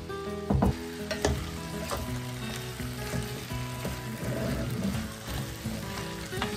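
Freshly added squash and zucchini cubes sizzling in an enamelled cast-iron pot as a wooden spoon stirs them, with a few knocks of the spoon among the vegetables in the first two seconds and again near the end.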